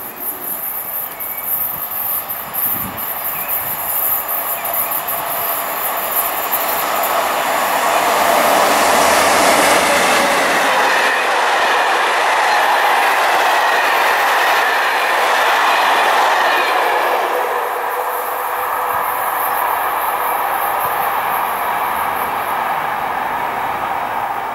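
Intercités passenger train of Corail coaches passing through the station at speed, its wheels running on the rails. The sound builds over the first several seconds, is loudest in the middle, and eases off toward the end.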